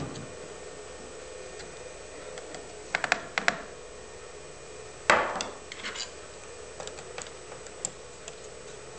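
Clicks and knocks of hard plastic and metal parts being handled as the CopperHead fiber adaptor is fitted onto its mounting plate on the camcorder: a quick cluster of clicks about three seconds in, one louder knock about five seconds in, then a few lighter clicks and ticks.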